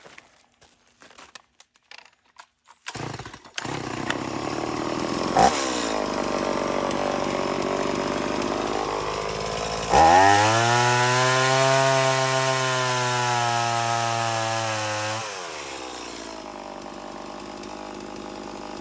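Chainsaw fitted with an Oregon PowerSharp sharpener, running its chain against the sharpening stone. A few clicks come first, then the saw runs steadily from about four seconds in. About ten seconds in it revs up high and holds there for about five seconds as the chain is ground sharp, throwing sparks, then drops back to a lower speed.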